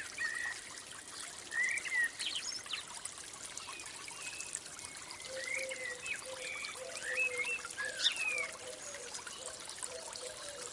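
Water trickling steadily while several birds chirp and call over it. About five seconds in, a lower, repeated call joins them.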